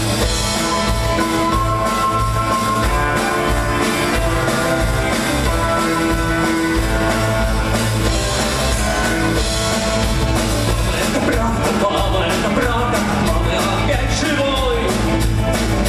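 Live symphonic rock: a rock band with electric guitar playing together with a symphony orchestra's strings, to a steady beat.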